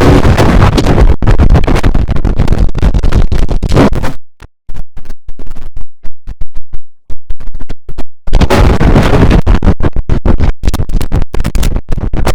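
Heavily distorted, very loud edit of the IBM OS/2 Warp 3 shutdown sound, chopped into rapid stutters and scratch-like cuts. It drops out after about four seconds to a few isolated clicks, then the loud stuttering noise returns about eight seconds in.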